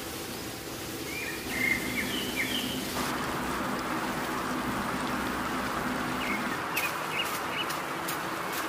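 Birds chirping in short bursts, twice, over a steady hiss that gets louder about three seconds in.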